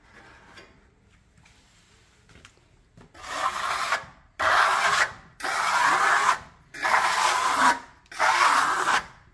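Hand trowel scraping across half-dried decorative plaster, smoothing the rolled-on coat in five sweeping strokes of about a second each, starting about three seconds in.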